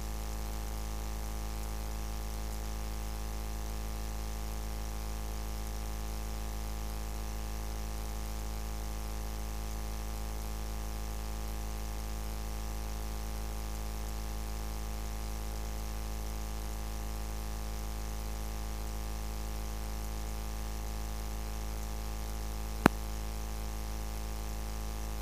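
Steady electrical buzz, a mains hum of many even tones that does not change, with one sharp click a few seconds before the end.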